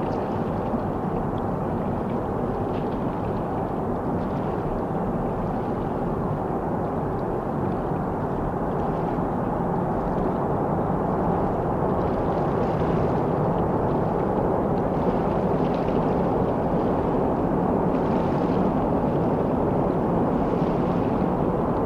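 Jet engines of an Airbus A330-203, General Electric CF6-80E1 turbofans, running with a steady rumble that grows slightly louder in the second half.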